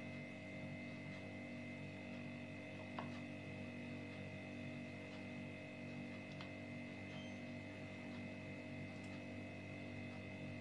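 Faint, steady background hum made of several constant tones, with one faint click about three seconds in.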